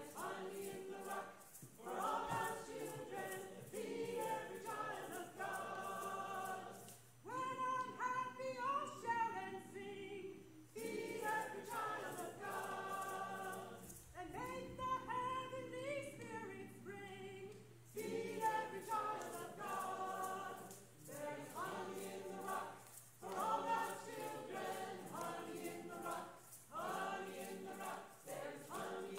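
A choir singing, phrase after phrase, with short breaks between the phrases.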